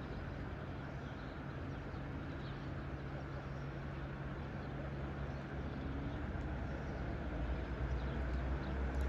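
Steady outdoor background rumble with a low hum, swelling a little near the end, with a few faint bird chirps over it.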